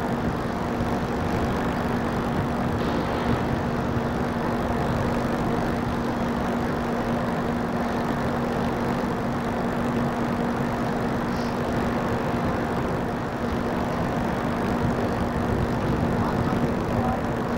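Steady rumble and wind noise with a constant low hum running through it, typical of the open deck of the QE2 liner with the ship's machinery running.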